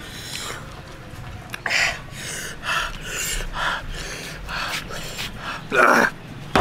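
A person gasping and breathing hard through the mouth in a run of short breaths, with a louder gasp near the end.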